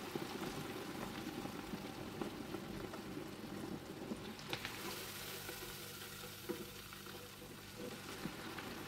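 Onions deep-frying in an electric deep fryer, the oil sizzling and bubbling steadily as it foams up in the basket, with a couple of faint clicks about halfway through.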